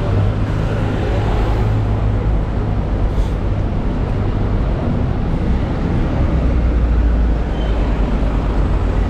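Busy city street traffic: a steady low engine drone from double-decker buses and cars passing close by, heaviest about two thirds of the way through.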